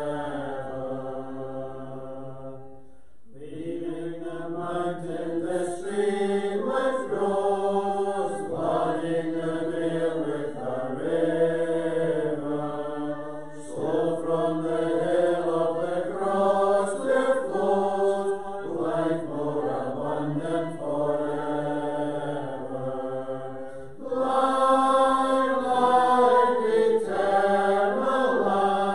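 A hymn sung by a group of voices in slow, held notes, with a short break between lines about three seconds in and a louder passage near the end.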